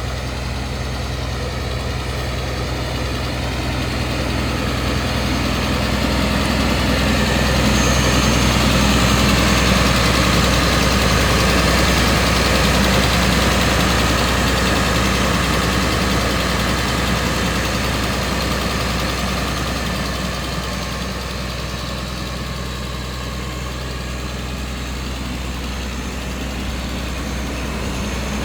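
The John Deere 6068T six-cylinder turbo-diesel engine of a CMI C250 tracked mulcher, running at a steady speed. It grows louder through the middle and eases off again later on.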